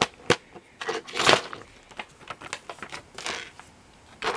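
Handling noises: a few sharp clicks, with plastic packaging rustling loudest about a second in and again about three seconds in.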